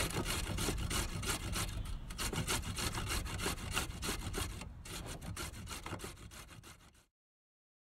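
Carrot being grated on the coarsest side of a metal box grater: quick, repeated rasping strokes that fade over the last couple of seconds and cut off abruptly to silence near the end.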